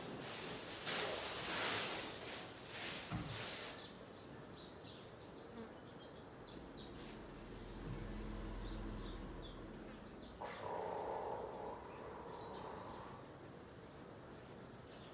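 Rustling as the elephant calf shifts on the leafy branches and hay of its stall floor, loudest in the first few seconds. A rapid, high, evenly repeated chirping trill runs in the background near the start and again near the end.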